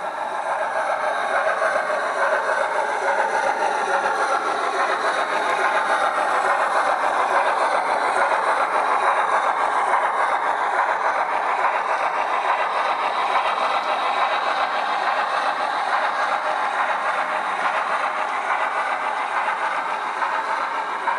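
Steam locomotive sound from a LokSound v5 sound decoder, played through a small speaker in the tender of a model LMS 8F as it runs. It rises in level about a second in, then carries on steadily.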